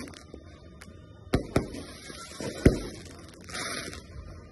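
Aerial fireworks going off: three sharp bangs, two in quick succession a little over a second in and the loudest near the middle, followed by a short hiss near the end.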